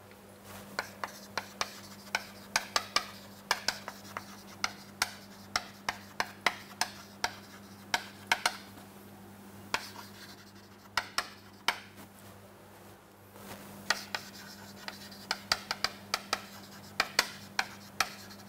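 Chalk writing on a chalkboard: a quick run of taps and scratches as letters are written, with a brief pause just past the middle.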